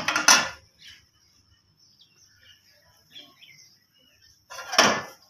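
A metal pot lid clatters against the cookware briefly at the start and once more, loudly, near the end. Faint bird chirps sound in the quiet between.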